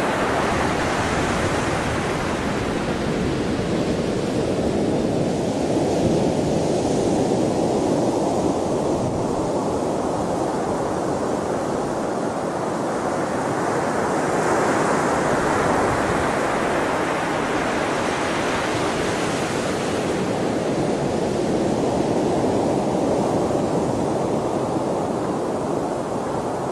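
Sea waves washing ashore, a continuous rush of surf that swells and eases in slow surges every several seconds.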